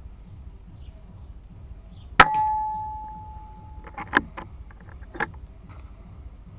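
A single shot from a Daystate Red Wolf PCP air rifle firing a .22 slug: a sharp crack followed by a metallic ring that fades over about a second and a half, then a few quick clicks and a last knock a second later.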